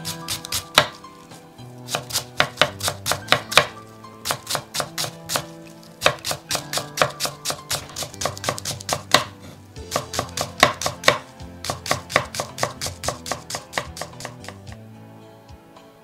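Kitchen knife rapidly chopping a scored Japanese long onion (naganegi) on a wooden cutting board, about five or six quick strokes a second in runs with short pauses. The chopping stops shortly before the end.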